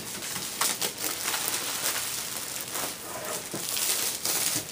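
Plastic shrink wrap being torn off a cardboard box and crumpled by hand, crinkling and crackling in irregular bursts.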